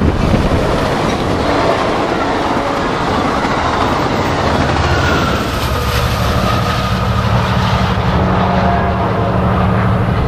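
Amtrak Pacific Surfliner passenger train passing close by: steady rumble and clatter of the bilevel cars' wheels on the rails. About halfway through, the F59PHI diesel-electric locomotive pushing at the rear goes by with a steady engine drone.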